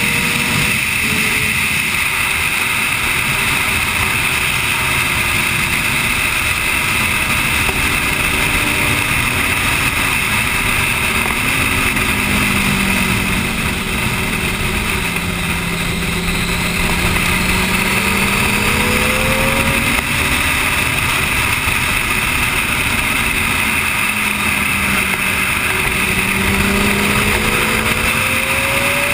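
Sport motorcycle at speed on a track, heard over a steady rush of wind. The engine note falls as the bike slows for a corner about halfway, then climbs under acceleration, dips briefly and climbs again near the end.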